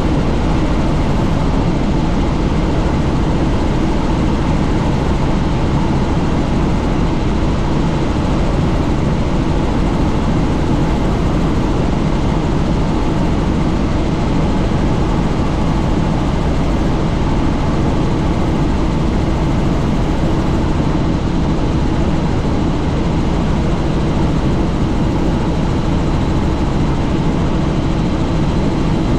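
Helicopter in flight: steady rotor and engine noise mixed with rushing wind, on a flight with the doors off.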